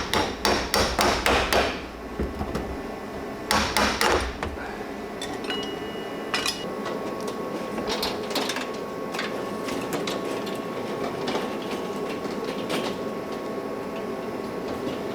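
Hammer striking out a steel door hinge pin, metal on metal: a quick run of blows, about five a second, for two seconds, another short run about three and a half seconds in, then lighter scattered taps.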